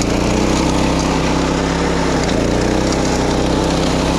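Small petrol engine of a walk-behind wing mower (levee mower) running steadily at constant speed.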